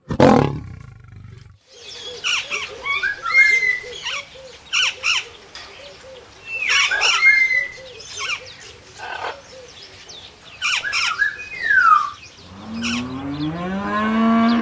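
A brief roar at the very start, then a long run of high, squeaky chirping animal calls with quick pitch glides, several at a time. Near the end a cow begins to moo, a low call rising in pitch.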